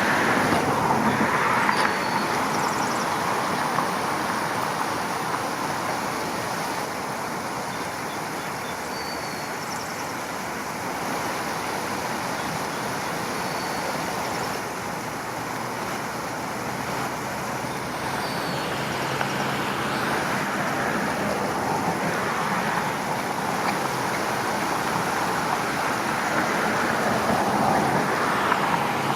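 Steady roar of road traffic that swells and eases as vehicles pass, with a few brief high bird chirps.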